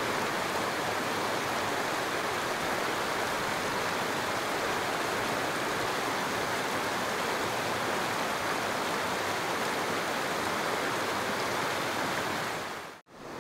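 Mountain creek water rushing steadily over rocks, an even, unbroken rush that cuts out abruptly for a moment near the end.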